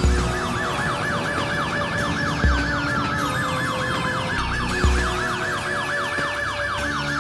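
Electronic background music: a fast, warbling, siren-like synth line repeating about four or five times a second, with long falling glides over it and a deep bass hit about every two and a half seconds.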